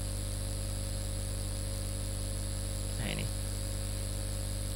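Steady electrical mains hum with several overtones and a constant background hiss on the recording, with a brief vocal sound about three seconds in.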